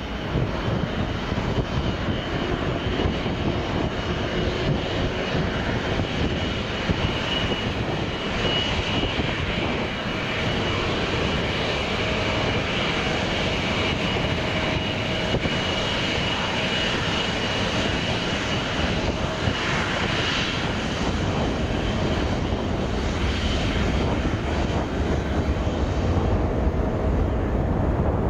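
Boeing 777-200ER's GE90 turbofan engines running at taxi power, a steady jet whine over a low rumble, the rumble swelling slightly near the end.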